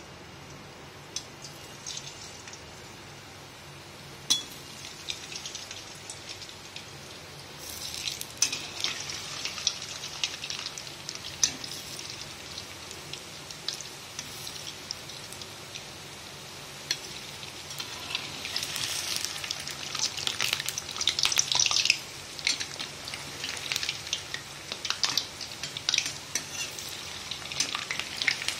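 Spinach and cheese balls deep-frying in hot oil in a kadhai: a crackling sizzle that starts about a quarter of the way in and swells as more balls go in, loudest about two-thirds through. A few clicks sound before the sizzle begins.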